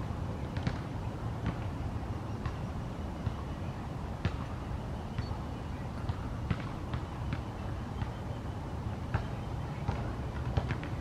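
A pair of ospreys calling: short, sharp, high-pitched chirps come irregularly, one or two at a time, over a steady low rumble.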